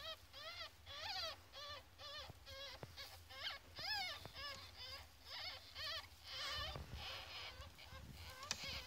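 14-day-old ferret kits squeaking in the nest: a rapid series of short, high squeaks, about two or three a second, each rising and falling in pitch.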